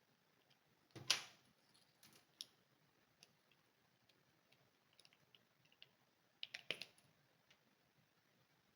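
Light clicks and taps of small objects being handled on a work surface, with one louder knock about a second in and a quick cluster of clicks near the end, over near silence.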